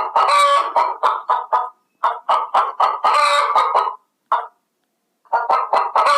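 Chicken clucking in quick, short repeated notes, about four a second, with a harsher squawk twice. It breaks off abruptly twice.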